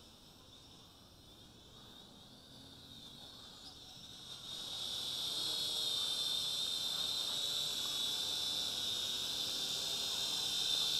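Whine of a small toy quadcopter's motors and propellers, the Fineco FX-6C. It is faint at first and grows much louder about four seconds in as the drone flies in close, then holds steady.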